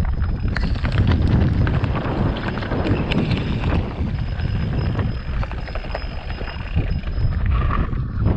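Wind buffeting the microphone in a low, constant rumble, with irregular crunching and rattling clicks from moving over stony desert ground.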